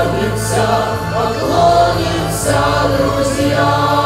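A man and a woman singing a song into microphones, backed by a choir and steady sustained accompaniment.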